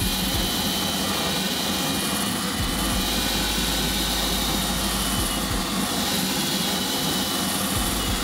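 Milwaukee M18 cordless drill spinning a wire wheel against a rusted steel floor pan: a steady scrubbing whir with a thin high whine, stripping rust off the metal.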